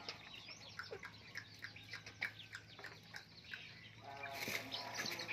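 Chickens calling: many short, high cheeping chirps from young chickens, with a longer, lower call about four seconds in.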